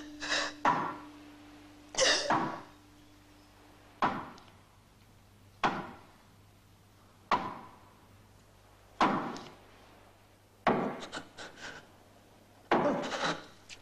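A whip lashing a man's bare back in a slow, regular flogging: a sharp crack about every one and a half to two seconds, each dying away quickly.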